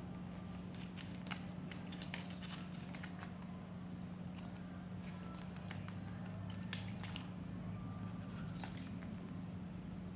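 Scattered light clicks and crackles of a laptop hard drive and its plastic parts being handled and pressed into place, over a steady low hum.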